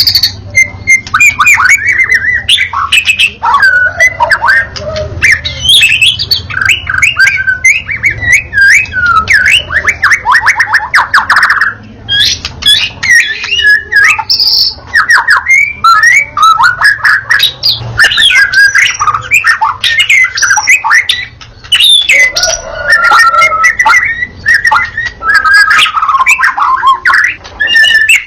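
White-rumped shama singing nonstop: a loud, varied song of quick whistles, sweeping notes and fast trills, with only brief pauses.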